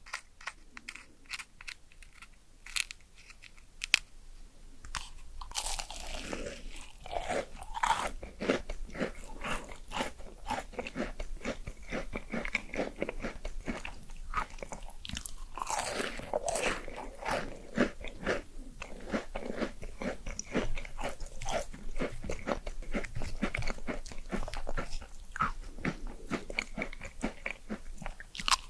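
Close-miked eating: crunchy bites and steady crackly chewing. For the first few seconds there are only sparse clicks and taps, with one sharp tap about four seconds in.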